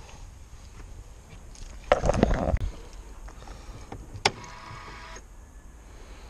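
A rattling clatter about two seconds in, then a sharp click as the Audi A8's boot-lid latch is pushed shut with a key, followed by a short electric motor whir that cuts off suddenly.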